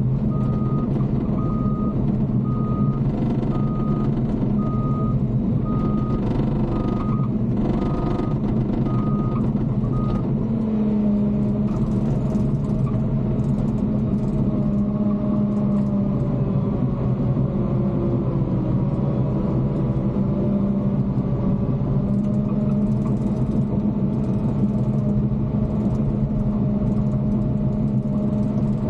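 Bulldozer's diesel engine running steadily, with a backup alarm beeping about one and a half times a second that stops about ten seconds in. After that the engine note wavers up and down.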